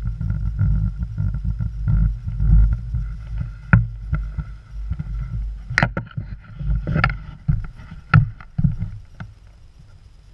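Skis scraping and sliding over packed snow, with a rough low rumble of wind and motion on a helmet-mounted action camera and a few sharp clacks. The noise dies down near the end as the skier comes to a stop.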